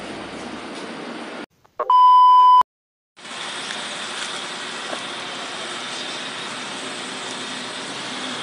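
A loud electronic beep tone, a single steady pitch lasting under a second, about two seconds in, with brief dead silence on either side. Around it is steady background noise, with a faint high-pitched hum after the beep.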